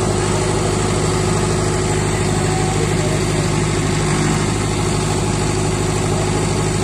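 Tractor diesel engines, a Sonalika and a John Deere 5050 D, running steadily under load as they pull against each other in a tug-of-war.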